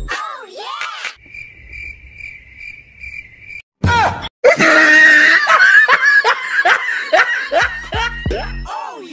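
Novelty meme audio: a sliding exclaimed 'whoa'-like voice, then a steady high tone for about two seconds. After that comes a sudden loud burst, and then shouting, screaming vocals with repeated downward slides, about two a second, over music.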